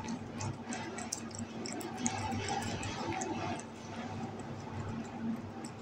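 Cat chewing and licking mango chunks from a hand: a run of small wet clicks and smacks.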